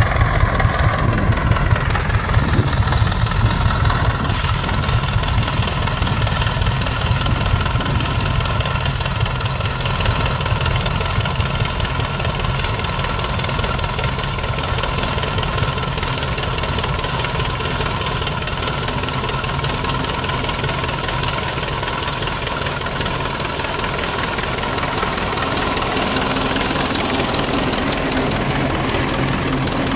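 Large vintage farm tractor's engine running steadily under load as it pulls a plow past at close range.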